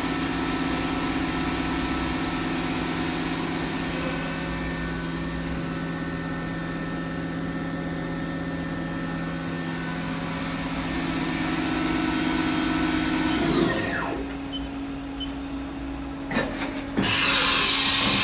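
Haas Super Mini Mill CNC spindle running at a steady speed with a high whine, then winding down about 13 seconds in; a lower steady hum carries on after it. Near the end come a few clicks and a short burst of loud noise.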